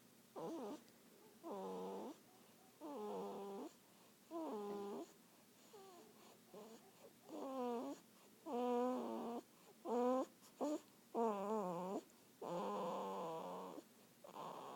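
A sleeper's voiced snoring: a wavering, sung-sounding note on each breath, about one every second and a half, several louder than the rest about two-thirds of the way through.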